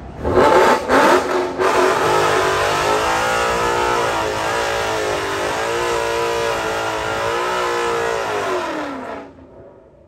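A car engine held at high revs through a burnout, tyres spinning, its pitch wavering up and down for about nine seconds before the revs drop off.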